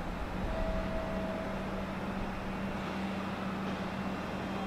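JR Shikoku 7200-series electric train pulling slowly into the platform to stop: a steady low hum, with a brief higher tone about half a second in.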